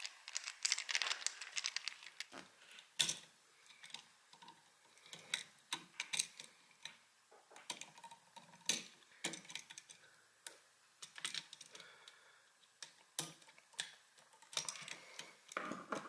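Faint, irregular small clicks, taps and rattles of a screwdriver and needle-nose pliers working the terminal screws and copper wires of a new three-prong electrical outlet.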